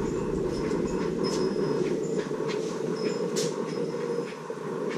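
Steady low mechanical hum with scattered light clicks and ticks.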